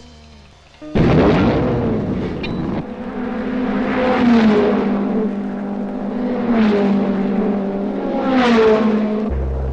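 Cars speeding past one after another, with a sudden loud rush about a second in. About three pass-bys follow, each swelling and then dropping in pitch as it goes by, over a steady low hum.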